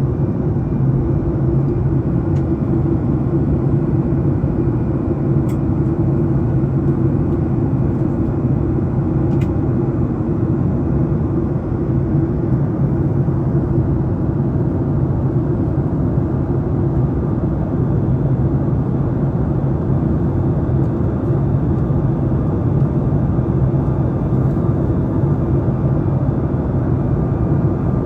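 Steady cabin drone of a Boeing 737 MAX 8 in the climb, just past 10,000 feet: even engine and airflow noise, heaviest in the low end, from its CFM LEAP-1B turbofans and the air rushing past the fuselage.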